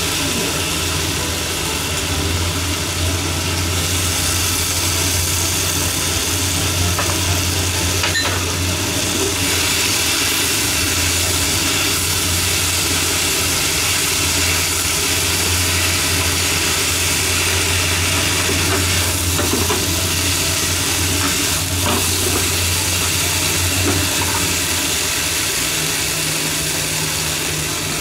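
Shishito peppers and chikuwa sizzling in a frying pan as they are stirred with chopsticks, with a few light clicks of the chopsticks against the pan. Under it runs a steady low hum.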